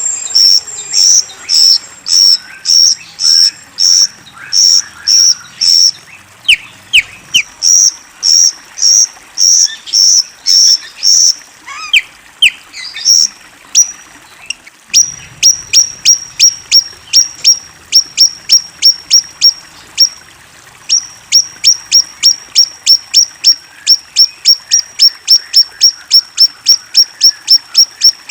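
Rio-rio songbird singing: one short, sharp, high note repeated steadily, about two a second at first and quickening to about three a second later. A few lower down-sweeping chirps come in around the middle, and the series breaks off briefly twice.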